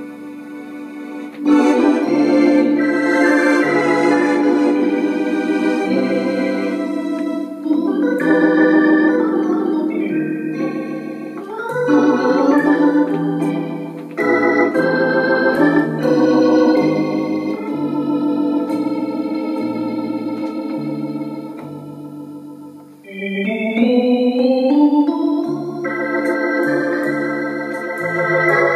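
Bugari Evo digital accordion playing a tune with its theatre organ voice: held chords over a bass line that steps from note to note, with a rising run of notes about three-quarters of the way through.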